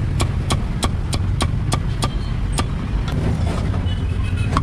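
Meat cleaver chopping roast meat on a thick wooden chopping block, sharp knocks about three a second that stop a little past halfway. A steady low rumble of street traffic runs underneath.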